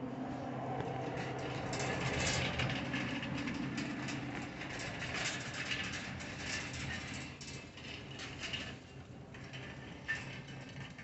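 Wire shopping cart being pushed along a store floor, its wheels and basket rattling; the rattling quietens near the end. A steady low hum runs underneath.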